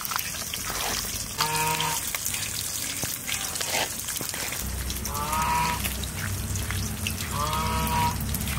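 Wet squelching and slapping of hands kneading oily, spice-coated fish pieces in a clay bowl. An animal calls three times, and a low steady hum starts about halfway through.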